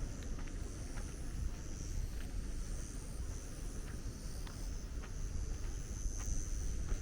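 Outdoor ambience on a walk: a steady low rumble, with a steady high-pitched drone like insects and a few faint light ticks scattered through.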